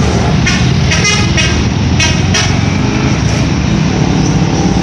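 Telolet musical horn on a heavy vehicle sounding short tuneful notes in three bursts in the first two and a half seconds, over the steady rumble of the engine.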